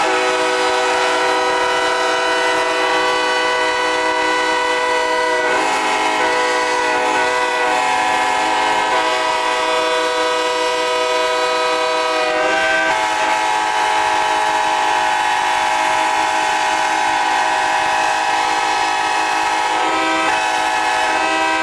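Several locomotive air horns blowing together without a break, their notes overlapping in a dense, steady chord. The mix of notes shifts about five seconds in, again about thirteen seconds in, and once more shortly before the end.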